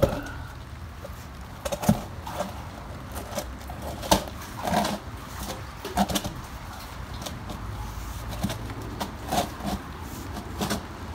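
Irregular knocks, scrapes and rustles of hands working at ground level close to the microphone, over a steady low rumble.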